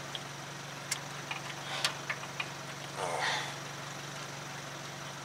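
Grease gun coupler clicking and knocking against a suspension ball joint's zerk fitting as it is worked onto the fitting, a few sharp metallic clicks over a steady low mechanical hum.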